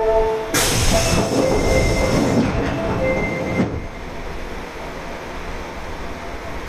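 Osaka Metro Tanimachi Line subway car with a Hitachi GTO inverter running: the inverter's steady whine stops about half a second in, followed by about three seconds of loud running noise with brief high wheel squeals, which then drops to quieter steady running noise.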